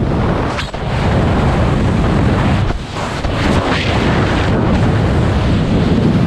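Loud rushing wind buffeting a helmet camera's microphone in skydiving freefall, a dense rumble of air that dips briefly about a second in and again near three seconds.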